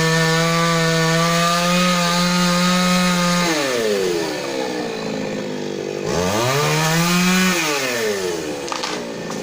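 Chainsaw engine running at high revs for about three seconds, then dropping off, revving up again around six seconds in and falling away once more.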